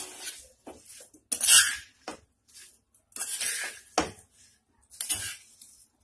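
A cooking spoon scraping around a nonstick kadai as it stirs oily boiled amla chunks, green chillies and spice mix together. The scraping comes in separate strokes about a second apart, the loudest about one and a half seconds in.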